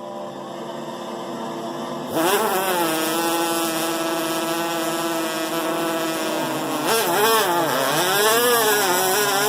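Vocal imitation of a two-stroke engine: a faint buzz, then about two seconds in a loud, high buzz starts suddenly and holds one pitch, and near the end it swings up and down like revving.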